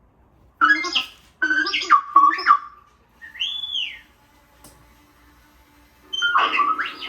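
Animatronic R2-D2 figure playing its electronic droid beeps and whistles through its built-in speaker: a run of quick warbling chirps, a rising-and-falling whistle, then more chirps near the end.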